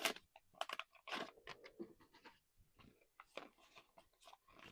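Trading cards being handled and flipped through by hand: faint, irregular card flicks and rustles.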